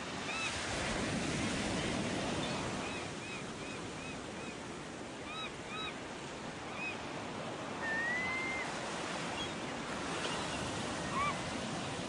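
Ocean surf breaking on a beach, a steady wash of waves. Over it a bird chirps in short high notes, about three a second for a while, with one longer rising whistle about eight seconds in.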